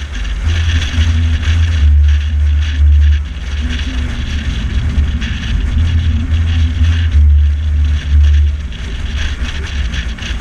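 Car driving at moderate speed: a steady low rumble of engine and road noise that swells louder and eases off several times, with a hiss of tyres and wind above it.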